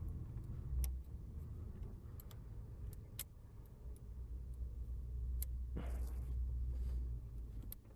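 Scattered faint clicks and scrapes of a straightened paper clip probing inside a Range Rover ignition lock cylinder beside a broken-off key, trying to hook behind the broken piece. A low steady rumble runs underneath.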